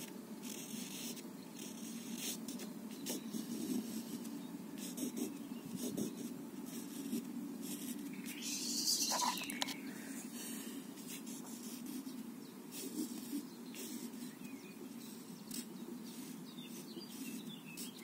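Garden ambience with a steady low buzzing of insects, scattered faint ticks, and one short brighter hiss about nine seconds in.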